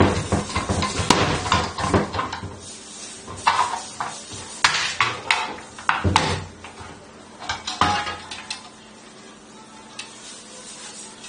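SYD-25 hand-pumped hydraulic hole punch being worked in quick strokes of its lever, a fast run of metallic clicks and knocks for about two seconds. Then a few separate clanks of the thin sheet-steel box against the punch as it is taken off the die, dying away to quiet near the end.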